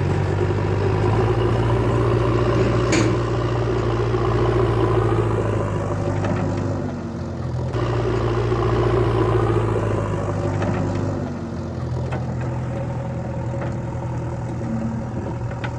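Heavy diesel engine running steadily, with the sound easing off briefly twice.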